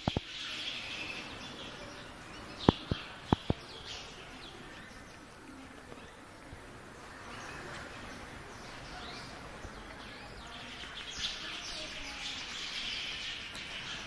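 A flock of small birds chirping continuously, many quick overlapping chirps. A few sharp knocks come about three seconds in.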